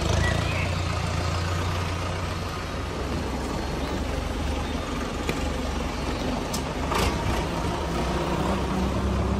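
Tractor engine sound effect running steadily: a low hum with a hiss over it, and a short click about seven seconds in.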